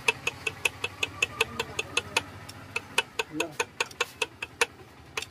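Bajaj Pulsar 150 connecting rod being rocked up and down by fingertips in the opened engine, knocking with a rapid metallic clicking, about four or five clicks a second. The click means the rod has up-and-down play, which the mechanic treats as a sign that the connecting rod has to be replaced.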